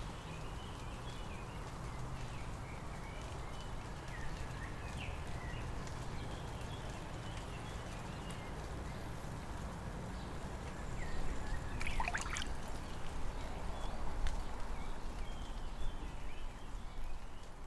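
Outdoor nature ambience: scattered short bird chirps over a steady hiss, with a louder, sharp sound about twelve seconds in and the background getting a little louder from there on.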